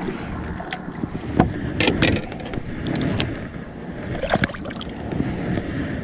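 Scattered knocks and clicks of gear being handled aboard a fishing kayak, the sharpest around one and a half, two and four and a half seconds in, over steady water and wind noise.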